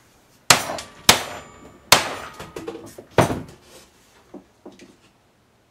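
Hammer blows on a bent metal mower-deck tensioner arm to straighten it: four sharp metal strikes over about three seconds, each ringing briefly, followed by a few faint knocks.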